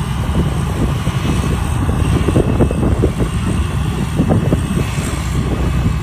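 Tracked rice combine harvester running steadily while it cuts and threshes ripe rice: a loud, dense engine and machinery rumble.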